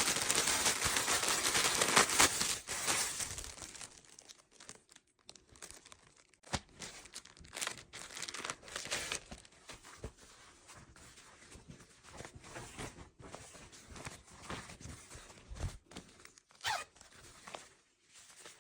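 Packaging being torn open, loud and dense for the first three seconds or so, then quieter crinkling and handling with scattered sharp clicks.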